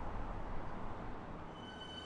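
Steady low rumble of a distant electric suburban train. About a second and a half in, several high steady whining tones from an electric train begin.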